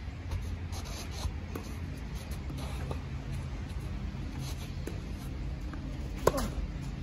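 Tennis rally: a few faint, distant ball hits and bounces, then a sharp, loud crack of a racket striking the ball a little after six seconds in, over a steady low hum.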